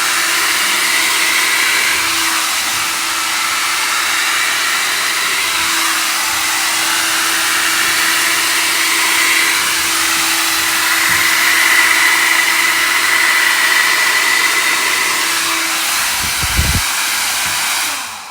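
Xiaomi Mi Ionic H300 hair dryer running steadily, a loud even rush of air with a faint steady hum, switched off near the end.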